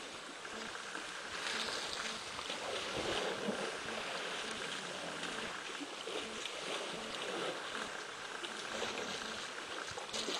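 Water sloshing and splashing as a baby elephant flounders in a waterhole beside the bank, over a steady outdoor hiss.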